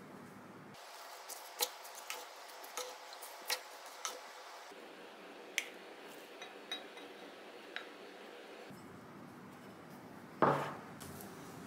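Rice paddle clicking and scraping against a cast-iron cocotte and a ceramic bowl as corn rice is stirred and scooped out, a string of light taps with one louder knock near the end.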